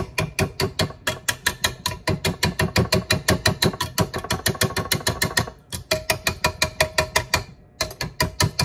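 Metal whisk attachment clicking rapidly against the metal mixing bowl, about seven sharp clicks a second with a slight ring, as batter is cleared off it. The clicking breaks off briefly twice.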